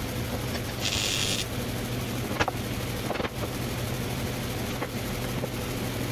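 Steady low machine hum, with a short hiss about a second in and two sharp metal taps near the middle.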